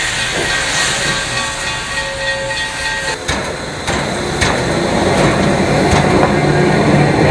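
Dubbed railway sound effects: a steady hiss of steam for about three seconds, then a sudden change to train noise with a few sharp knocks and clanks, and a low steady hum building near the end.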